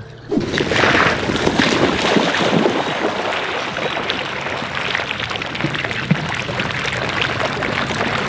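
Pond water splashing and churning as a flock of ducks paddle and scramble across it to feed, a dense run of small splashes with wind noise on the microphone.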